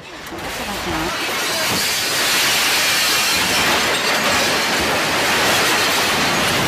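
A room and its contents shaking in the magnitude-9 2011 Tōhoku earthquake: a loud, continuous rattling rumble that swells over the first couple of seconds, then holds steady. A person shouts briefly near the start.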